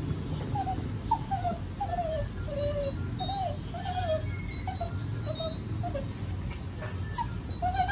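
Indian Spitz dog whimpering: a steady string of short, high whines, each rising then falling, about one and a half a second. It is the excited whining of a dog that thinks it is being taken out for a walk as its collar goes on.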